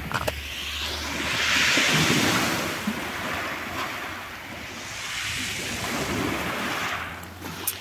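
Small waves of a calm sea washing up a pebble beach, two long swells of surf a few seconds apart, over a low rumble of wind on the microphone.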